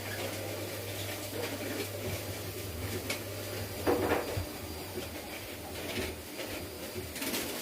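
Washing machine winding down at the end of its spin: a low drum-and-motor hum fades out about four and a half seconds in. Scattered clicks and knocks run through it, with a louder knock about four seconds in.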